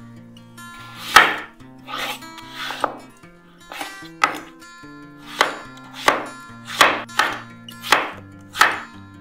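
Chef's knife cutting a peeled raw potato on an end-grain wooden board: about a dozen separate cuts, each ending in a sharp knock of the blade on the wood, the loudest a little over a second in.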